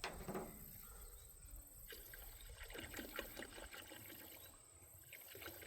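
Liquid pouring and trickling faintly into a car wash bucket.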